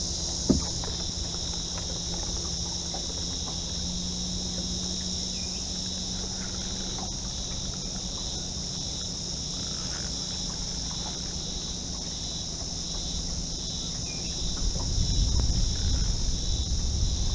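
Steady high-pitched drone of an insect chorus, with a single sharp knock just after the start and wind rumbling on the microphone over the last few seconds.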